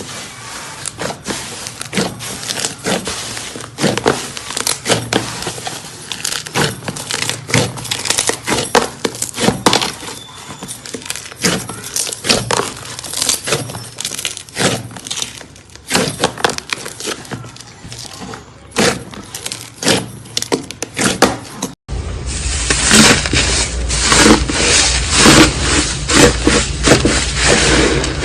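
Slime being squeezed and pressed, crackling and popping in irregular sharp clicks. About 22 seconds in it cuts to a louder, denser crunching.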